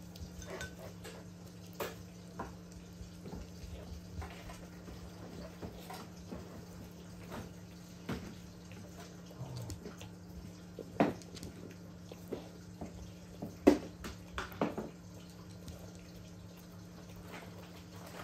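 Elderly long-haired dachshund eating soft homemade food from a bowl: small wet smacking and lapping sounds with scattered clicks, and a few sharper clicks about 11 and 14 seconds in. A steady low hum runs underneath.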